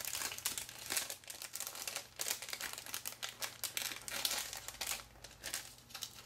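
Clear plastic packaging sleeve of a clear stamp set crinkling and crackling irregularly as it is handled and its flap pulled open.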